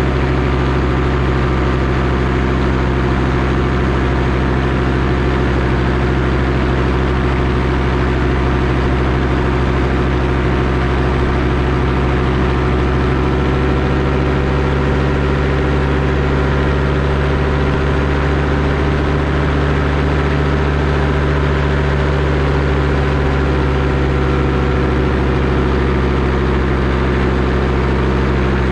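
Paramotor engine and propeller running steadily at an even throttle, the pitch wavering slightly now and then.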